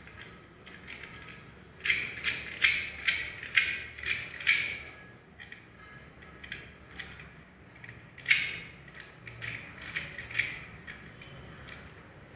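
Key being turned in a door interlock lock, its bolt mechanism clicking as the repaired lock is tested: a quick run of about six sharp clicks from about two seconds in, one loud click near eight seconds, then a few lighter ones.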